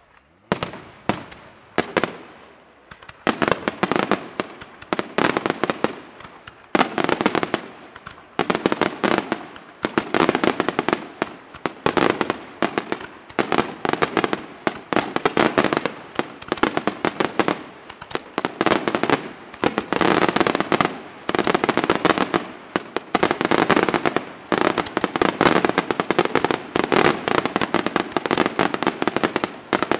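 Aerial fireworks display: a barrage of shell bursts and crackling stars that starts suddenly and grows denser, with clusters of sharp bangs coming several times a second until they run almost together.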